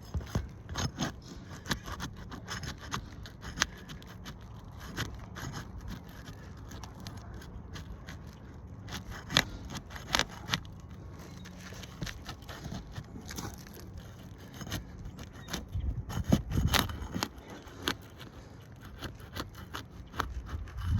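Scraping and irregular clicks of hand tools working under an asphalt roof shingle to pry the damaged one loose, with a few louder knocks and a stretch of heavier handling near the end.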